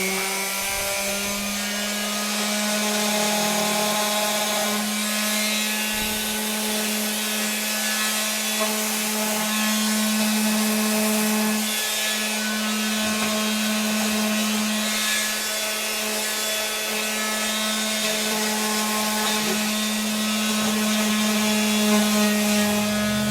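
Electric sander running at a steady speed, its motor humming at one pitch while the pad scrubs across wood.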